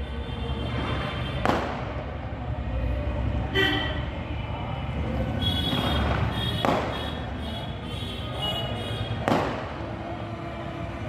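Firecrackers going off: four sharp bangs, each two to three seconds after the last, over a steady low rumble, with some music.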